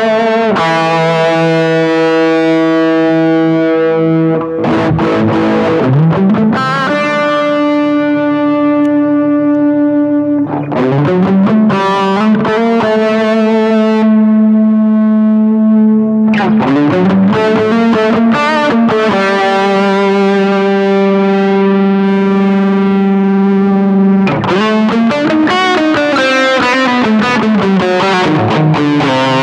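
Electric guitar played through an Aesir high-gain distortion pedal: long, heavily sustained distorted notes, with the pitch sliding between some of them.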